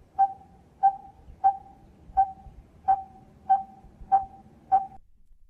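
Coppersmith barbet calling: a steady series of short, identical 'tuk' notes, about three every two seconds, which stops a little before the end. It is a call rather than a song, one simple note repeated over and over.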